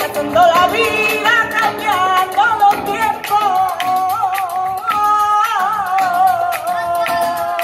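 Live flamenco music: a woman sings a long, wavering, ornamented melody over an acoustic guitar, amplified through PA speakers.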